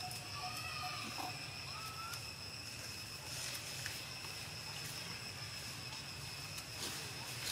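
Outdoor ambience: a steady high-pitched whine over a low hum, with a few short rising chirps about one and two seconds in.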